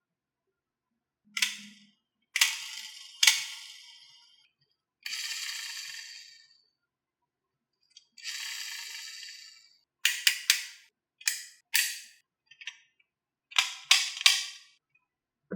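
Marbles running down a HABA marble run: sharp clacks as they drop and strike the track, two longer rolling rattles of a second or so each, then quick runs of clacks near the end.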